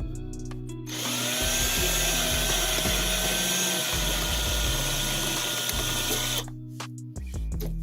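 A power drill/driver running steadily for about five and a half seconds, starting about a second in, with a steady whine over the motor noise.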